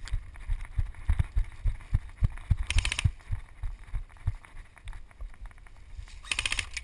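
Heavy running footsteps and gear jostling on a body-worn camera, as irregular dull thuds. An airsoft gun fires two short bursts of rapid clicking on full auto, one about three seconds in and one near the end.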